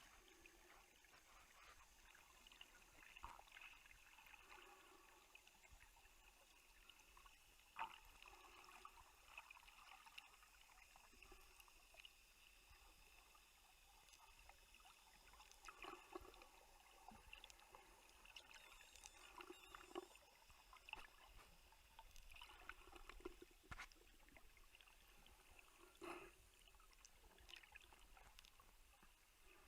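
Faint, muffled water movement, sloshing and gurgling in soft swells every second or two, with scattered clicks.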